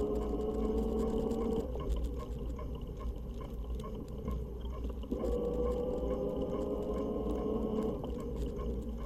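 Fat-tire e-bike's electric motor whining under power, the pitch slowly rising. It cuts out about a second and a half in, comes back near the middle and cuts out again near the end, over a steady low rumble.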